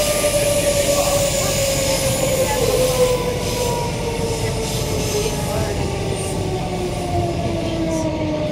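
Queensland Rail electric multiple unit heard from inside the carriage: the traction motor whine falls steadily in pitch as the train slows, over a constant rumble of wheels on the track.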